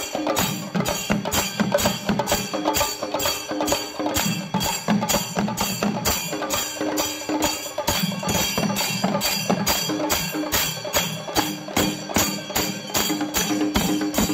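Kerala chenda melam: a group of chenda drums beaten with sticks in a fast, even beat, with ilathalam hand cymbals clashing along.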